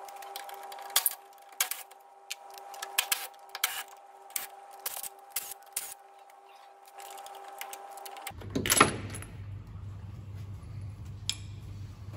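Metallic clicks and clinks of a socket and ratchet on the engine-mount bolts of a Citroen C4 being taken off, over a steady faint hum. About eight seconds in the background changes to a low hum, and a single loud metal clunk follows.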